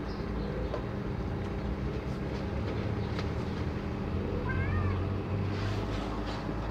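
A tabby kitten gives one short, high meow a little past the middle, over a steady low hum.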